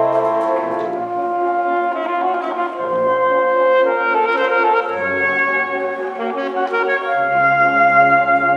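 Several saxophones playing slow, held chords together, including a low bass part, the harmony changing every second or two.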